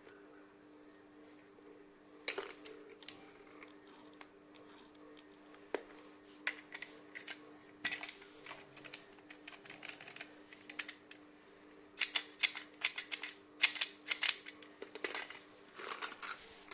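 Plastic toys being handled: irregular sharp clicks and clatters, a few at first and coming thick and fast in the last few seconds, over a faint steady hum.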